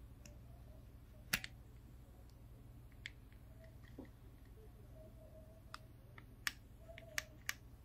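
Sharp metallic clicks and ticks from an aluminium individual throttle body being handled while its throttle lever is refitted. The strongest click comes about a second in, and a quick run of lighter clicks follows near the end, over a faint steady hum.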